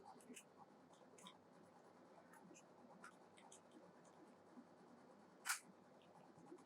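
Near silence with faint, scattered light taps and clicks, and one louder click about five and a half seconds in.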